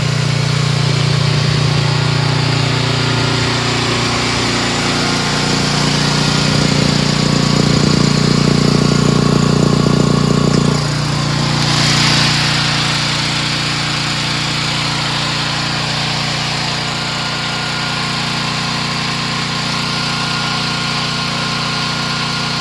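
Small air-cooled petrol engine of a mini excavator running steadily at idle. It runs louder for a few seconds and drops back sharply about eleven seconds in, with a brief hiss about a second later, around when the engine cover is lifted.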